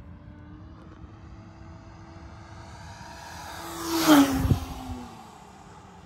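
Seagull Sport Cruiser RC model airplane making a low pass: its motor's hum grows louder as it approaches, peaks with a whoosh about four seconds in, then drops in pitch and fades as it flies away.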